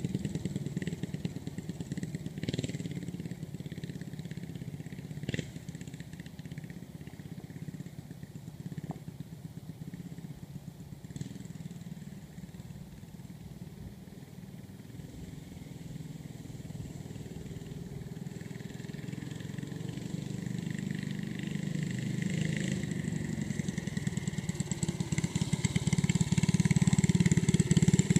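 Go-kart's small single-cylinder engine running steadily as the kart drives off, fading to faint through the middle, then growing louder as it comes back close.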